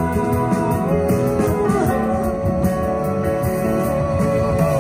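A live duet: a man and a woman singing a slow ballad into microphones, holding long notes over a band-style accompaniment with guitar.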